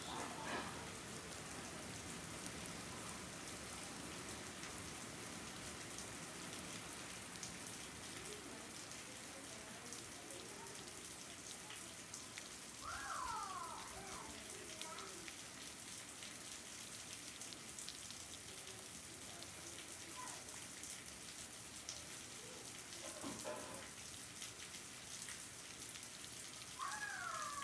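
Steady rain falling, an even hiss, with two brief high falling calls, one around the middle and one near the end.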